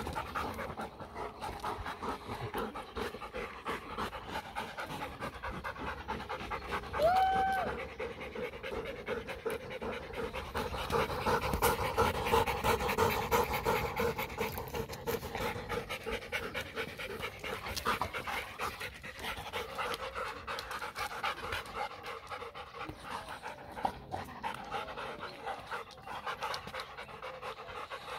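German shepherd–Labrador cross dogs panting rapidly close up, with one brief high-pitched squeak about a quarter of the way in.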